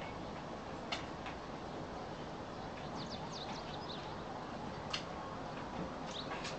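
Outdoor ambience: a steady background hiss with small birds chirping, a quick run of short high chirps about three seconds in and a few more near the end. A few brief sharp sounds stand out, about a second in and again near five seconds.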